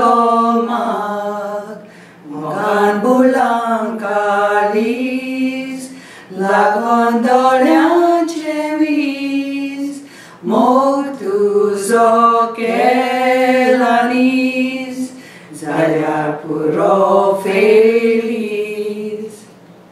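Three women singing a Konkani song together unaccompanied, in phrases of about four seconds with short breaths between them.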